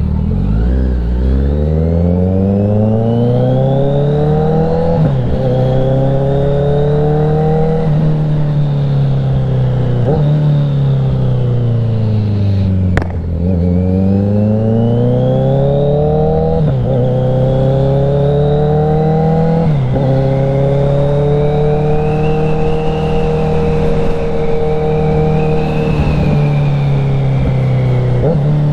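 Kawasaki Z900's inline-four engine pulling up through the gears, its pitch rising and then dropping at each quick upshift. About a third of the way in the revs fall away as it slows, and there is a sharp click. It then accelerates through two more gears and holds a steady cruise near the end.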